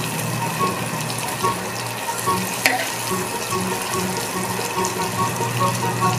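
Butter melting and sizzling in a wok, a steady bubbling hiss, with one sharp click about midway. Background music plays underneath.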